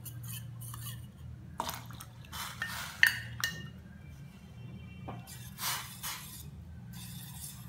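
Raagi flour and water mixture poured from a steel tumbler into a steel pot of hot water, with several sharp metal clinks of tumbler against pot, the loudest about three seconds in and ringing briefly, then a spoon stirring in the pot. A low steady hum runs underneath.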